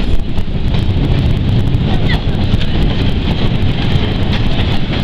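Steady low rumble of a moving train heard from aboard an open-sided passenger car, with wind noise on the microphone.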